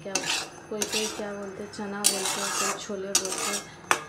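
Metal spatula scraping and stirring boiled chickpeas and corn in a kadhai: a run of rasping scrapes against the pan, the longest about two seconds in, with a sharp clink near the end.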